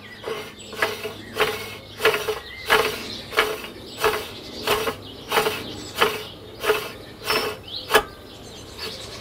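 Threaded collar of a Faema MPN coffee grinder being screwed into its housing by hand, the oiled thread scraping with each turn at about one and a half strokes a second. A single sharp click about eight seconds in is the loudest sound.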